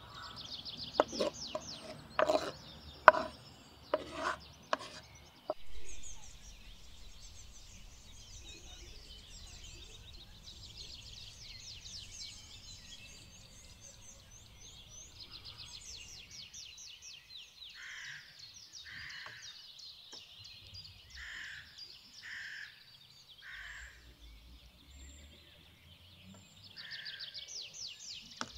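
A few sharp knocks and taps of a knife and wooden chopping board as chopped herbs are scraped off into a bowl, the loudest sounds, in the first few seconds. Small birds chirp and trill throughout. Past the middle comes a run of short, harsher calls about once a second.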